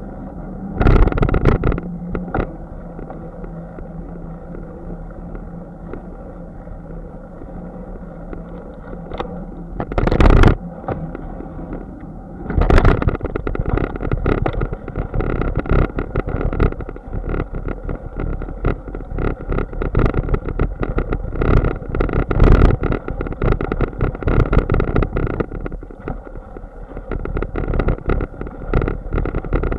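A bicycle rolling along with steady road and wind noise and a few hard jolts. From about twelve seconds in it turns into constant rapid rattling and knocking as the bike rides over bumpy grass.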